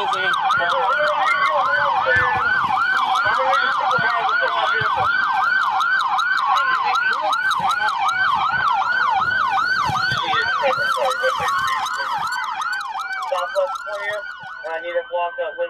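Police car sirens: a fast yelp sweeping up and down about four times a second, with a slower wail gliding over it. The sirens fade near the end.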